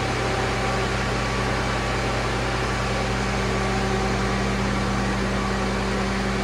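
A steady mechanical hum with a few low tones over an even hiss, unchanging throughout and cut off abruptly near the end.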